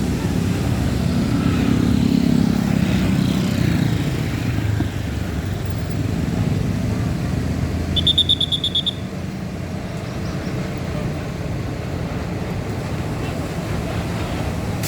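Tourist bus engines running with a steady low rumble, loudest in the first few seconds as the pitch rises slightly. About eight seconds in there is a brief, rapidly pulsing high-pitched trill.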